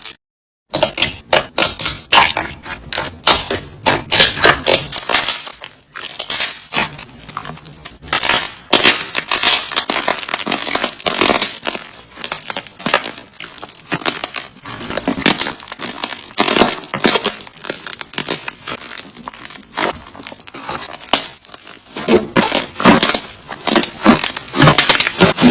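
Slime being squeezed and pressed by hand, giving a dense, continuous crackling and crunching. It breaks off briefly just after the start and dips around six seconds in, like cuts between clips.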